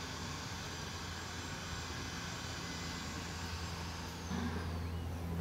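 Heavy earthmoving machinery (excavators and wheel loaders working a dig) running as a steady diesel engine drone, which gets a little louder about four seconds in.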